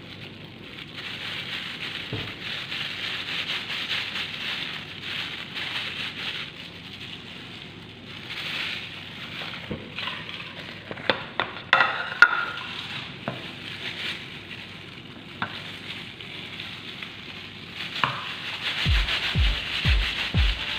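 Plastic food-prep gloves rustling and crinkling as hands knead and roll a moist breadcrumb mixture into logs, with a few sharp clicks and taps around the middle. Music with a steady bass beat comes in near the end.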